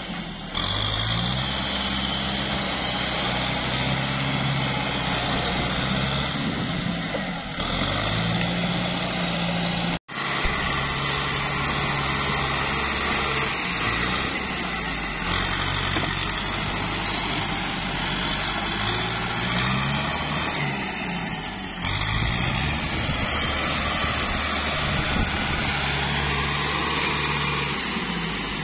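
Kubota tractor's diesel engine working under load as it pushes through deep mud, revving up and down several times. The sound cuts out for an instant about ten seconds in.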